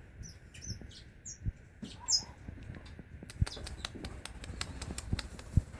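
Small parakeets in a bird room chirping and tweeting: a few short high chirps in the first two seconds, then a run of light clicks and taps through the second half.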